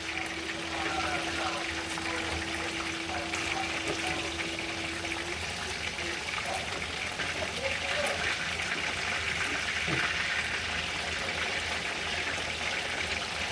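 Water running in a steady stream, like a tap into a sink, with a faint steady hum that stops about five seconds in.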